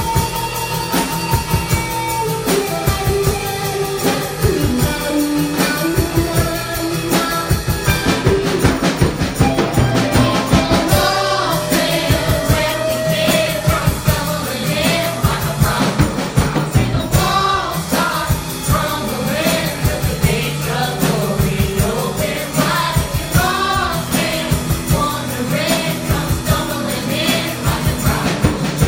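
Live gospel worship music played by a band with drums, with singing coming in at about eleven seconds.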